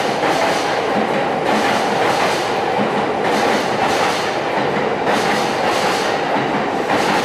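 Electric commuter train running along the tracks, a steady rumble with wheel clatter over rail joints about every second and a half.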